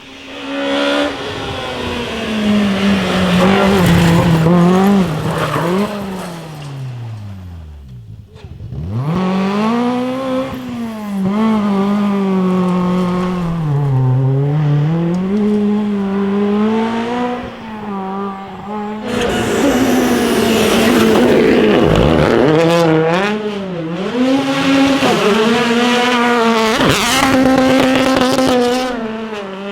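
Rally cars going by at speed one after another, their engines revving up and down through gear changes. The first car's pitch drops away steeply as it passes, another comes in about nine seconds in, and a louder one about nineteen seconds in, with a couple of sharp cracks near the end.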